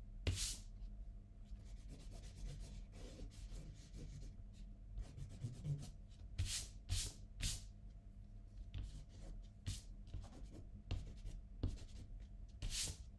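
Eraser rubbing over pencil lines on watercolour paper in short back-and-forth strokes, lightening the drawing, with a quick run of three stronger strokes about halfway through.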